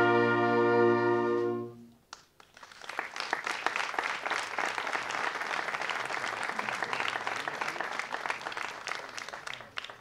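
A wind band holds its final chord and cuts off sharply about two seconds in. Then an audience claps steadily for several seconds, with the applause thinning out near the end.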